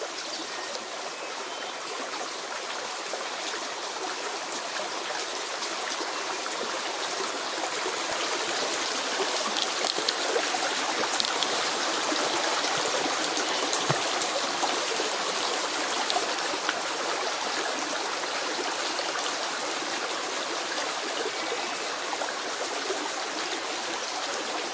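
A small rocky creek running steadily over stones, a continuous rush and trickle of water.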